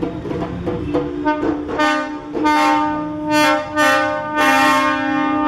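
Hand drums play for about a second, then a lorry's air horns sound a run of blasts on shifting notes, the last one long and held.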